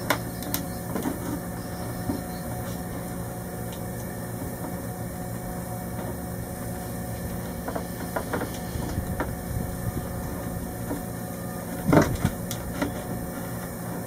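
Small clicks and knocks of wiring and a panel being handled inside a boat's battery-switch compartment, with a louder knock about twelve seconds in, over a steady low hum.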